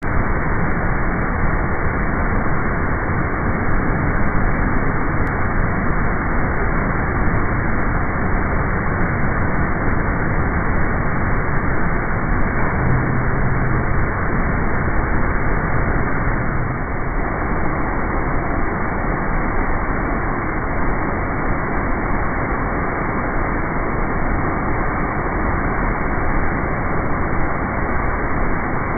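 Loud, steady rushing of the Iguazu Falls, a massive waterfall with heavy spray crashing into the river below.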